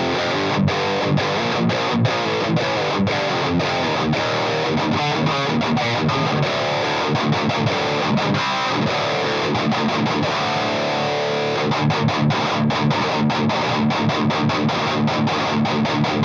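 Distorted electric guitar, tuned to D standard, played through a Marshall Vintage Modern 2466 100-watt valve head boosted by a KHDK Ghoul Screamer overdrive pedal. It is a chunky, dry riff, with many short stops between the chords.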